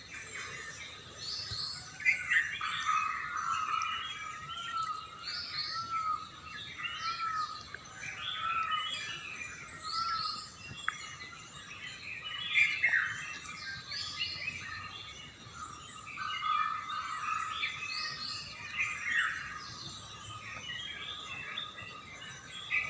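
Several songbirds singing and chirping at once, a busy morning bird chorus of overlapping trills and chirps. One bird repeats a run of low, evenly spaced arching notes, in two spells with a gap between them.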